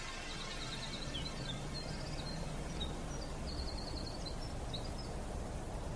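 Outdoor ambience: small birds chirping, with short high chirps and a couple of quick trills, over a soft steady background hiss.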